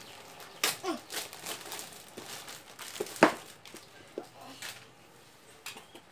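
Parcel packaging crinkling and crackling in irregular bursts as it is handled and pulled open by hand.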